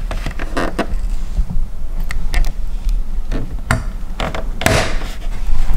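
Irregular clicks and taps of a chrome emblem being pushed by hand into a car's front grille, its prongs seating in the mounting holes, over a steady low hum.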